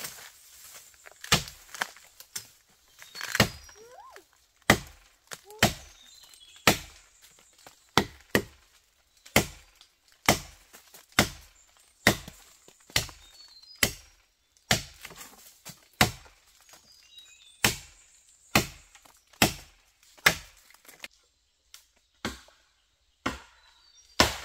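Repeated chopping: a blade striking wood about once a second, some two dozen sharp strokes in a steady rhythm.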